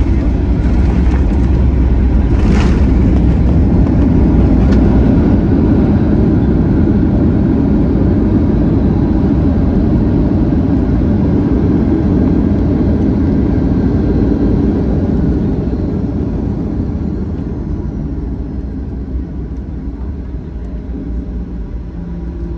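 Loud, steady roar of a Boeing 737-800's engines and rushing air heard inside the cabin during the landing rollout; it eases and fades over the last several seconds as the plane slows on the runway. A brief clunk about two and a half seconds in.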